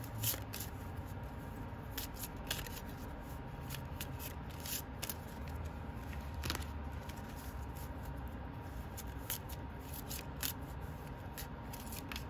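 Embroidered Tarot 2.0 cards being shuffled overhand by hand, not riffled: a run of soft, irregular card clicks and slides.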